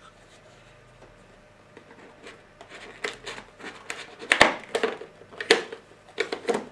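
Cardboard packaging and a plastic battery pack handled by hands, as the pack and its cable are lifted out of a box insert: a string of rustles, clicks and knocks starting about three seconds in.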